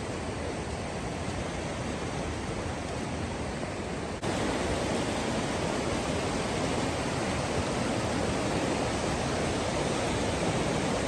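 Rushing mountain river water, a steady rushing noise that jumps louder at a sudden cut about four seconds in.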